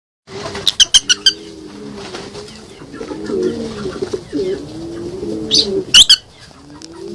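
Birds calling: repeated low cooing calls, each rising and falling, with two short clusters of sharp high chirps, the louder one about six seconds in.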